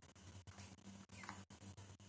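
Faint congested breathing of a small pet rodent with a blocked nose, with one short squeaky breath sound a little past halfway.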